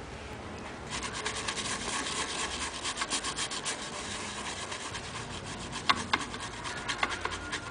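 Rapid scrubbing of a white swab back and forth over the bare chip pads of a circuit board, cleaning them before a new integrated circuit is soldered on. It starts about a second in, with a few sharper clicks near the end.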